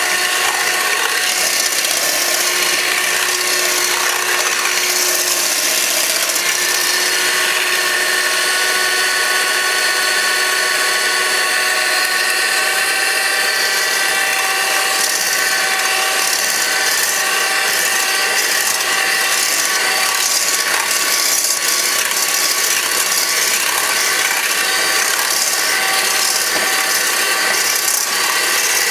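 Electric hand mixer running steadily with a whine, its beaters whisking egg whites in a stainless steel bowl as they are whipped toward firm peaks.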